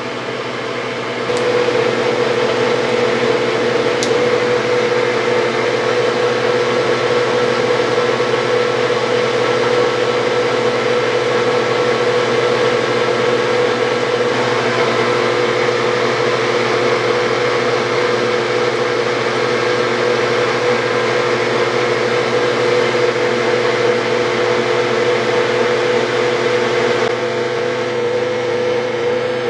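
Metal lathe running and taking a light four-thousandths finishing cut on a tapered pin: a steady mechanical hum with one strong tone. It gets louder about a second in and eases slightly near the end.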